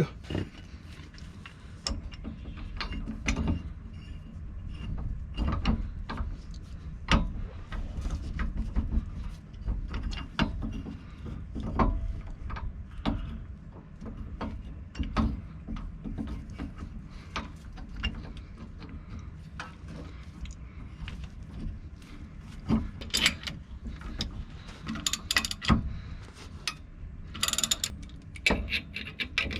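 A 1/2-inch ratchet clicking in irregular strokes as it turns the screw of a C-press, pressing a U-joint bearing cap through the yoke, with scattered sharp metal clicks.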